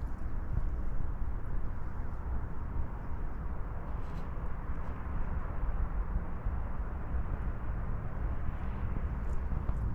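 Wind rumbling on the microphone: a steady, low, fluttering noise with no distinct events.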